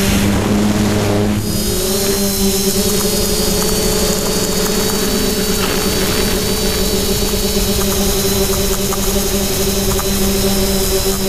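Quadcopter's motors and propellers droning steadily in flight, a loud whine with a hum underneath, heard from the onboard camera. The pitch shifts briefly about a second in, then holds steady.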